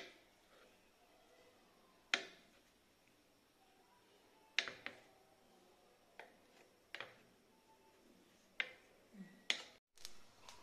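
Kitchen knife chopping through soft potato dough and striking a plastic cutting board: sharp taps every second or two, some in quick pairs.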